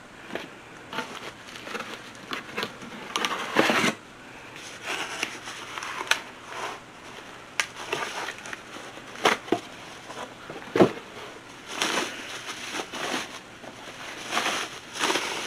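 Packaging crinkling and rustling while a boxed cooking pot is unwrapped, with scattered sharp clicks and knocks throughout.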